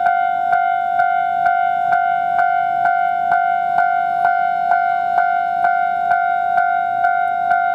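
Japanese railway level crossing alarm ringing, a steady clanging tone repeated about twice a second. It signals that a train is approaching the crossing.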